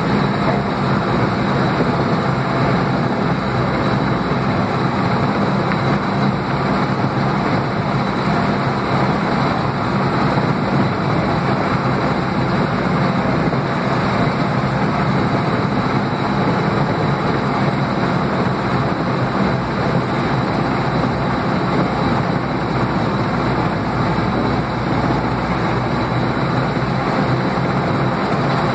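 Panzer 38(t) tank's engine running steadily as the tank drives along, heard from on board.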